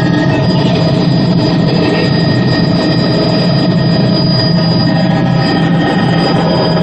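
Helicopter engine and rotor running steadily, a loud, even drone with a low hum beneath it.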